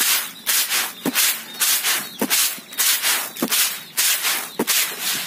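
Grain, wheat by the narration, being winnowed in a woven bamboo winnowing basket: a rushing hiss each time the grain is tossed up and falls back, about one and a half times a second. Four sharp knocks about a second apart run through it.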